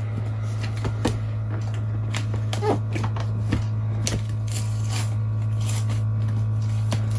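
The iMac's cardboard box being worked open by hand: scattered scrapes, taps and rustles of cardboard being handled and pulled at, over a steady low hum.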